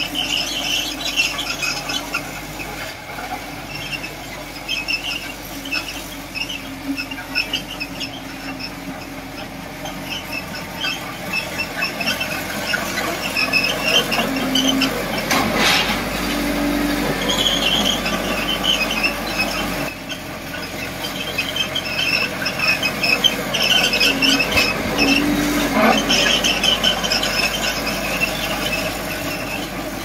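Crawler bulldozer's steel tracks squealing, many short high squeaks over and over as the machine moves, over a steady low drone. The squealing grows louder around the middle and again later on.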